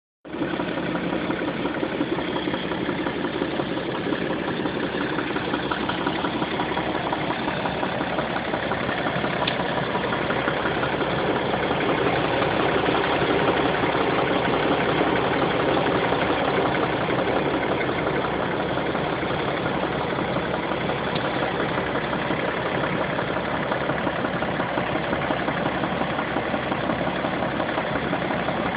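BMW X3 F25 30d's straight-six diesel engine idling steadily, with a fast, even clatter. Among it is a foreign noise from under the bonnet that the owner reports has appeared on the nine-month-old car.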